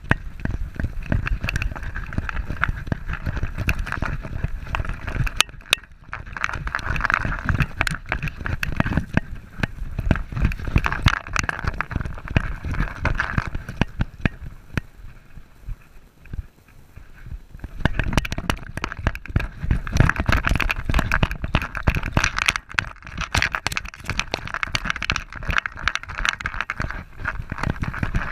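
A dog running flat out over sand, heard from a camera strapped to its back: rapid, irregular paw strikes and the camera jolting with each stride, over a steady rumble of wind and movement on the microphone. It eases off for a few seconds a little past the middle, then picks up again.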